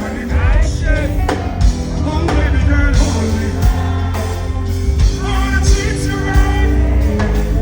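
Live dancehall reggae concert music over a festival PA: a heavy, steady bass line and drums, with a singing voice over them.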